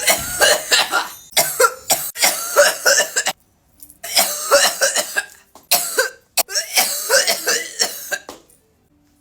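A woman coughing hard in four fits with short gasping breaks, the last ending about a second before the end. It is a harsh coughing fit after hitting a 'blinker' on a cannabis vape pen, a hit held until the pen's light blinks.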